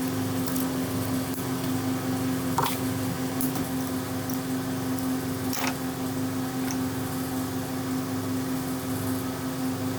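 A small electric motor running steadily with a constant hum, with a few light clicks over it.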